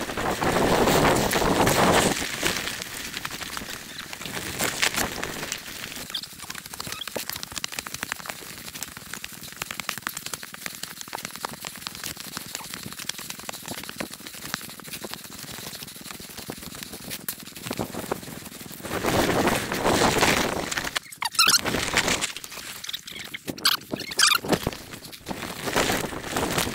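Mountain bike riding down a rough trail: tyres rolling over rock and gravel with a steady run of rattles, clicks and squeaks. It gets louder for a couple of seconds at the start and again about nineteen seconds in.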